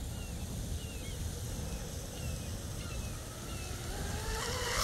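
Electric RC catamaran's 2948 brushless motor and propeller running at speed, a whine that rises in pitch and grows louder through the second half as the boat comes closer. Wind rumbles on the microphone throughout.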